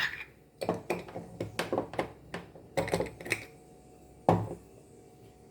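Kitchen containers and utensils clattering: a quick run of light taps and clicks for about three seconds, then one louder knock a little after four seconds.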